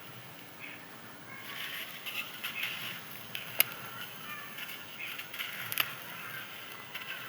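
Dry, crispy chunks of dyed sand crumbling and crunching, with a crackly texture and two sharp snaps, about halfway and near the end.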